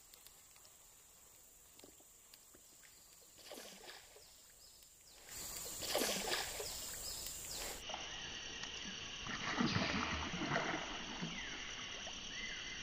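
Quiet at first, then from about five seconds in a snakehead splashing at the surface as it hits a soft frog lure, several splashes.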